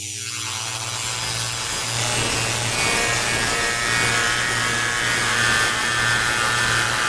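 Modular synthesizer drone from a 4ms Ensemble Oscillator through a Doepfer ring modulator. It opens up within the first half second from a filtered tone into a harsh, rasping noise over a steady low hum.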